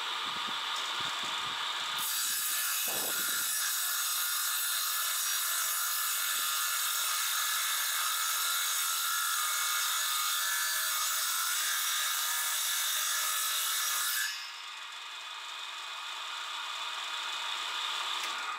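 Homemade table saw's circular blade running with a steady whine, then cutting through a wooden board for about twelve seconds with a loud, continuous rasping cut. Once the board clears, the blade spins free and only the whine remains. The saw is driven by an electric motor that the builder calls very weak.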